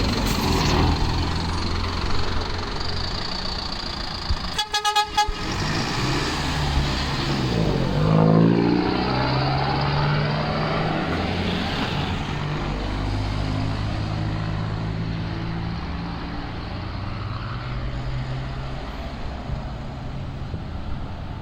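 Mercedes-Benz OM924LA four-cylinder turbo-diesel of an LO 916 bus running. A vehicle horn blasts briefly about four and a half seconds in, and around eight seconds in the engine pitch rises as it accelerates, then it runs on steadily.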